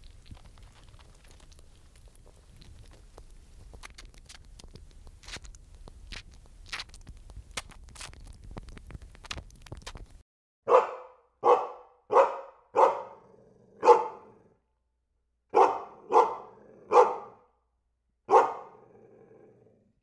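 Faint, irregular clicking of a red squirrel nibbling a nut over a low background rumble. About ten seconds in, a dog starts barking: nine loud barks in two runs of five and four.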